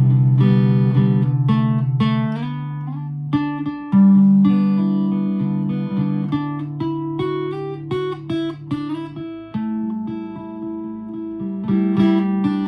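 Guitar played in a slow improvisation: plucked melody notes and chords ring out over held low bass notes, with a strong bass note struck about four seconds in.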